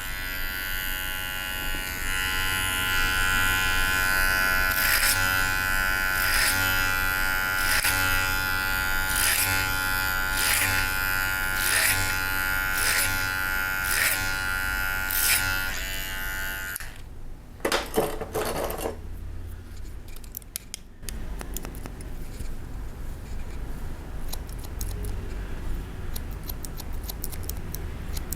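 Electric hair clipper buzzing steadily, with a regular stroke about every 0.7 seconds as it passes through hair. It cuts off suddenly just past halfway, and after a few brief strokes come rapid scissor snips.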